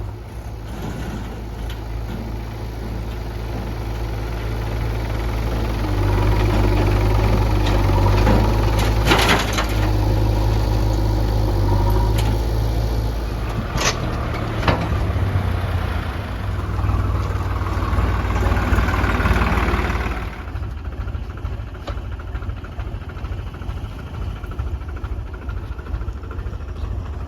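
Diesel engine of a JCB 3DX backhoe loader working under load while loading murum, louder from about six seconds in until around twenty seconds, then easing back to a lighter run. Two sharp knocks sound in the middle.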